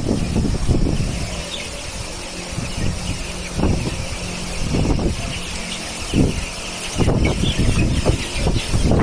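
36-inch Valco basket fan with a half-horsepower motor running steadily, its airflow rumbling in uneven gusts over the microphone, with a faint steady hum and hiss.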